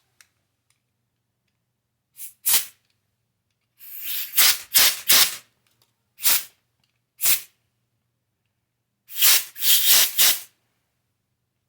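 Air blown in a series of short hissing puffs through a small-engine carburetor's main jet to clear it of clogging gunk. Some puffs come singly and some in quick clusters.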